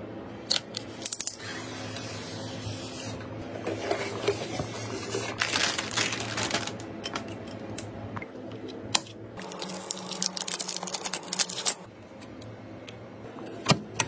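Cardboard and plastic packaging of a graphics card box being handled and opened: rustling, rubbing and tearing, with a few sharp clicks.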